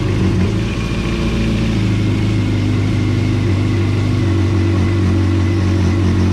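Yamaha 1.8 L four-cylinder WaveRunner engine idling steadily just after starting, run briefly to fill the new oil filter with oil.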